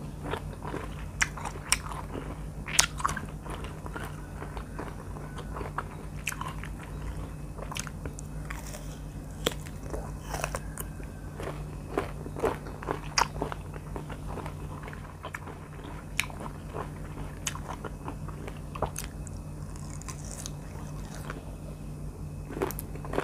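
Close-miked biting and chewing of firm R2E2 mango slices, with sharp crunches at irregular intervals over a low steady hum.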